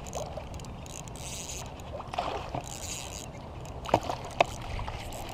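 A hooked peacock bass splashing and thrashing at the water's surface while a spinning reel is cranked, with two short sharp sounds about four seconds in.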